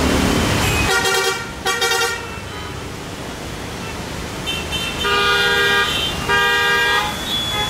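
Vehicle horns honking in slow, congested road traffic: two short honks about a second in, then two longer honks near the end, over a steady traffic rumble.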